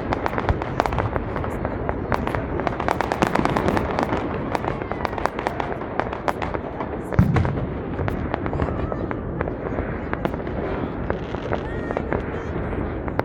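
Fireworks and firecrackers going off continuously: a dense crackle of sharp pops and bangs, with one deeper boom about seven seconds in.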